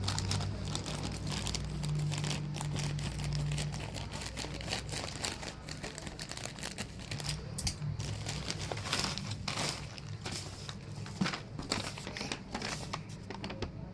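Plastic wrapping on a boxed pair of wireless earbuds crinkling and tearing as the package is opened by hand: many quick, irregular crackles over a steady low hum.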